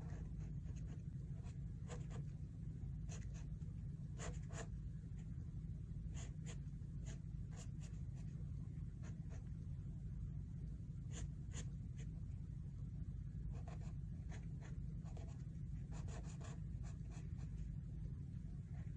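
A pen scratching quick, irregular sketching strokes on sketchbook paper, in short bursts with pauses between, over a steady low hum.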